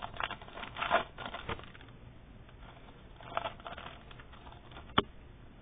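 Trading-card pack wrapper crinkling as it is torn open, then quieter rustling as the stack of cards is handled, with a single sharp click near the end.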